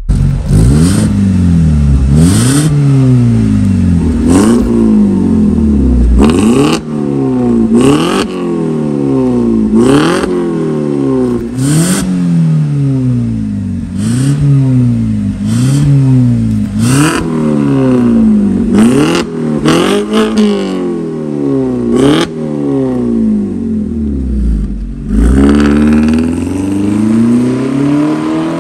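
BMW E90's tuned exhaust, split to quad black tips with a vacuum exhaust valve, being revved in repeated blips about every one and a half to two seconds, with a sharp crack as each rev peaks and drops. Near the end the engine settles low, then rises steadily as the car pulls away.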